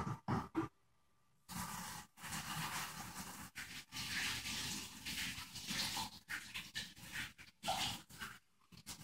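Kitchen tap running while hands are washed under it, starting about a second and a half in and cutting in and out several times. A few short knocks come before it.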